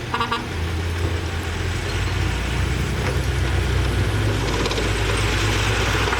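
Heavy diesel engine of earthmoving machinery running steadily; about two seconds in its low hum settles to a deeper note and grows a little louder.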